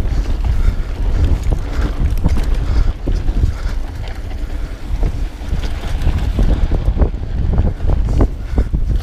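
Wind buffeting a chest-mounted GoPro Hero 4's microphone during a mountain bike descent, a heavy steady rumble. Frequent short knocks and rattles come from the bike and its tyres on the bumpy dirt singletrack.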